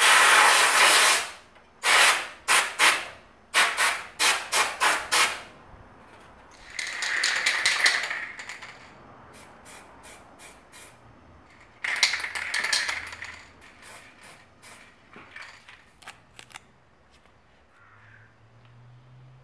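Aerosol spray paint can hissing in bursts: one long spray at the start, a quick run of short puffs, two longer sprays, then a few fainter short puffs.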